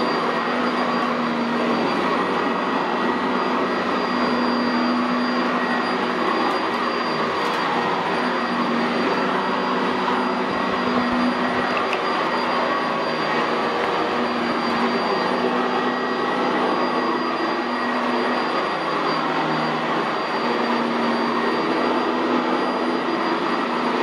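Sanitaire SC679J commercial upright vacuum cleaner, fitted with a Vibra-Groomer II brush roll, running steadily with a constant high motor whine as it is pushed over carpet.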